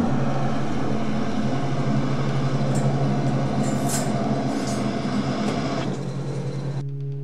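Knitwear steam-finishing table running: a steady low machine hum with an even hiss, a few light clicks as the worker handles the table. The hiss stops suddenly near the end.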